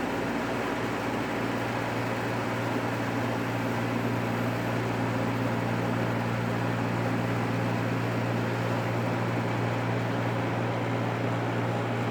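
Carrier room air conditioner running with a steady hum and fan and airflow noise. It has just started, and the compressor is still building up head pressure.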